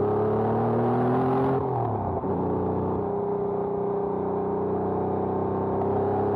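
Air-cooled 3.6-litre flat-six of a 1992 Porsche 911 Carrera 2, heard from inside the cabin while driving. The engine note rises under acceleration, drops briefly about a second and a half in at an upshift, then pulls again with a slowly rising pitch.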